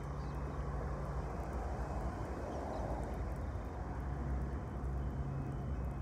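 Diesel freight locomotive engine running with a steady low hum.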